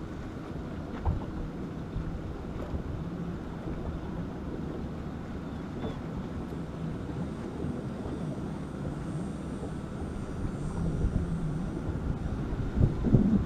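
Steady low motor drone from a boat, drifting slightly in pitch, with some wind on the microphone and a few knocks near the end.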